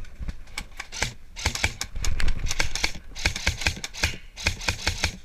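Airsoft guns firing: quick strings of sharp clicking shots in three flurries, starting about one and a half seconds in, about three seconds in, and near the end.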